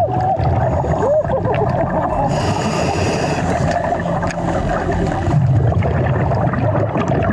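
Underwater sound from a scuba diver's camera: a steady muffled rumble of water and bubbles, with a scuba regulator's breath hissing about two seconds in. Two short squeaky chirps sound in the first second or so.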